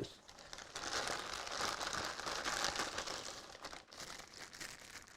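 Packaging crinkling and rustling as it is handled and pulled open, loudest over the first few seconds and then fading.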